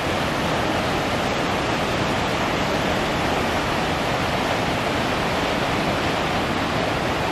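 Steady, unbroken rush of the Rhine Falls: heavy white water churning and crashing in the river below the falls.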